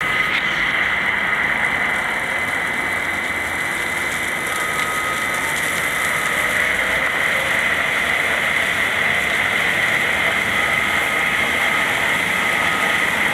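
Diamond wire saw running and cutting stone: a steady high whine over a constant, water-sprayed hiss from the wire and its drive wheel.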